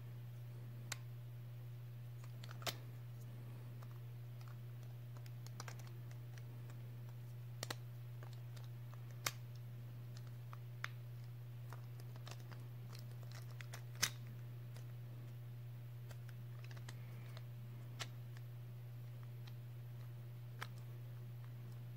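Scattered, irregular sharp plastic-and-metal clicks from a Beyblade Burst top being turned over and handled in the fingers, the loudest about 14 seconds in, over a steady low hum.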